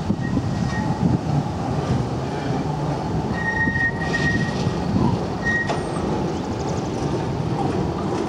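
Articulated low-floor tram rolling slowly around a tight turning loop: a steady low rumble of wheels on rail, with a thin high-pitched wheel squeal that comes and goes, strongest a few seconds in.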